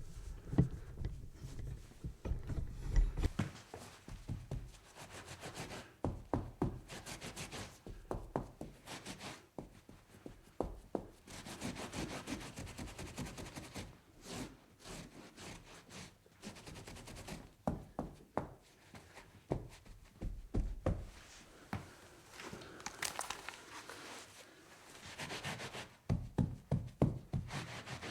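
Cloth wiping and scrubbing across a tabletop in irregular back-and-forth strokes, with frequent light knocks and taps against the table.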